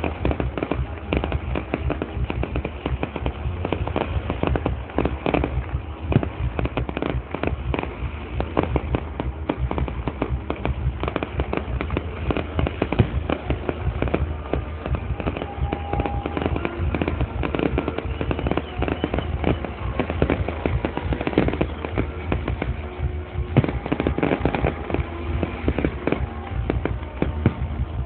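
Fireworks display going off without pause: dense, rapid bangs and crackles.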